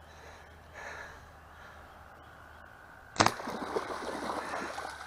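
A compound bow loosing a bowfishing arrow into shallow water, one sharp crack about three seconds in, followed by splashing and churning as the two speared carp thrash.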